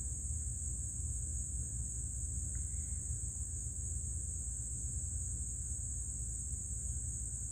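Steady high-pitched chorus of crickets or other night insects, with a low rumble underneath.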